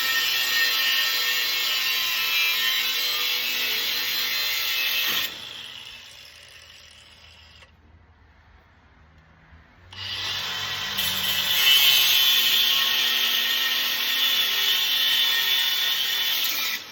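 Bauer cordless angle grinder cutting through cast iron railing bars with a steady grinding screech. About five seconds in the cut stops and the disc winds down; about ten seconds in it starts cutting again, then stops abruptly near the end.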